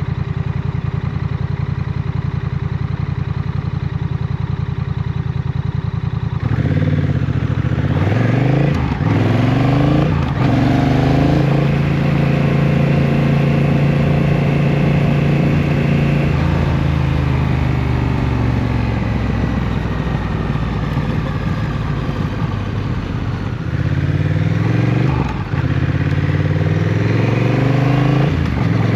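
Motorcycle engine idling steadily, then pulling away and accelerating, its pitch rising through two quick gear changes before settling to a steady cruise. It eases off, then picks up again with another gear change near the end.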